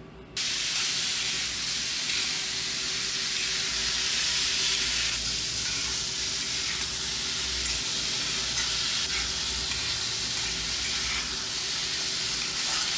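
Chopped onions, tomatoes and green chillies sizzling as they sauté in a hot black kadai, stirred with a metal spatula. The sizzle cuts in abruptly just after the start and holds as a steady hiss.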